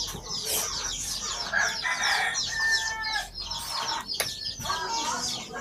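Chickens clucking and calling, with a held crow-like call about two and a half seconds in, over many quick high chirps.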